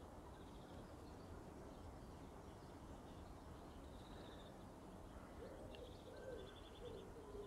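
Faint background birdsong: short high chirping trills on and off, and a lower wavering call repeated a few times near the end.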